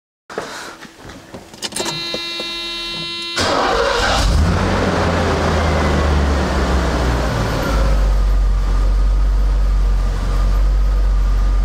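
Mercedes-Benz 560SL V8 engine being started: a short steady whine as it cranks, then it catches about three and a half seconds in and settles into a steady idle. It starts cleanly with a replacement ignition control unit fitted in place of the faulty one.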